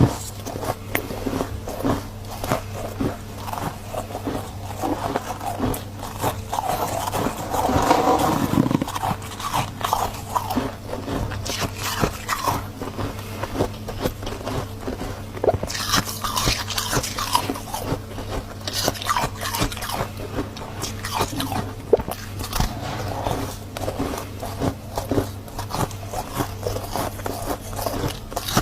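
Close-up biting and chewing of freezer frost: a dense, irregular run of crisp crunches and crackles.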